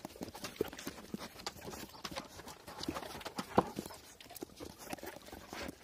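Central Asian Shepherd dogs moving about on wooden plank flooring: irregular short clicks and taps of claws and paws, with one louder knock about three and a half seconds in.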